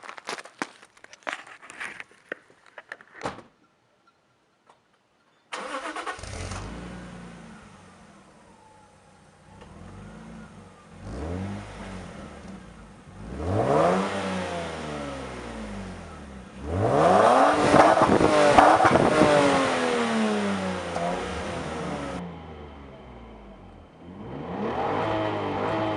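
Lexus IS200's 2.0-litre straight-six exhaust through an HKS Silent Hi Power aftermarket muffler, revved several times with the pitch rising and falling. The longest and loudest rev comes about two-thirds of the way in. A few clicks and knocks and a short near-silent pause come before the engine sound begins.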